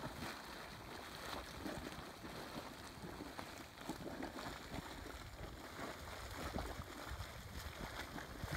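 Blue Mud Steam Vent, a muddy hot-spring vent, hissing and gurgling as steam sputters out of it, with many small pops.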